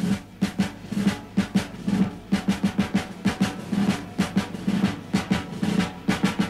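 Drum-only passage in the team song's backing music: drums beating a fast, even run of sharp strokes, several a second, coming in abruptly with no melody or singing over them.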